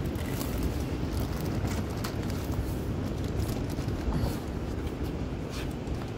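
Steady low outdoor rumble, with a few faint short rustles and taps as someone climbs over a wooden railing.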